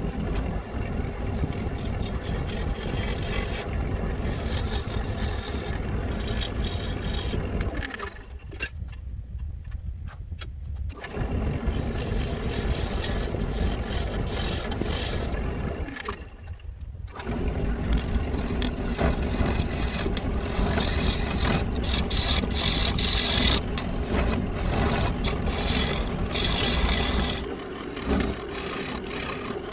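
Wood lathe running with a walnut blank spinning and a tool working against the wood, a steady hum under a scraping hiss. The cutting noise drops away twice, briefly about a third of the way in and again just past the middle, as the tool comes off the wood.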